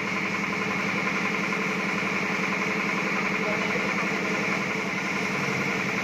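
A motor running steadily at idle, a constant hum with a fast, even throb.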